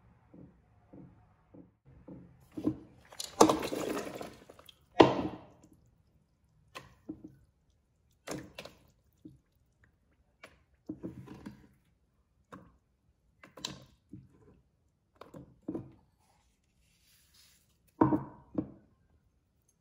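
Water splashing into a stainless steel pressure cooker pot, with a loud knock about five seconds in. Then a string of small splashes and knocks as pea pods, ginger, garlic and asparagus rounds are dropped one by one into the water.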